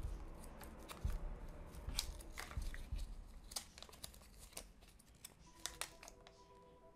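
Soft paper rustling and crinkling with small sharp ticks as fingers unfold a small folded printed paper sheet from a Kinder Surprise capsule. Faint music comes in near the end.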